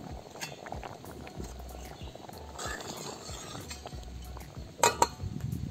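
A metal ladle stirring salt into cooked lentils and tomatoes in a metal pot: soft scrapes and knocks, with a sharp metal clink of ladle against pot near the end.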